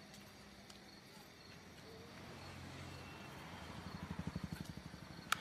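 A low, rapidly pulsing rumble swells and fades in the second half. Just before the end comes a sharp click as a small transistor radio is switched on, followed by a faint hiss.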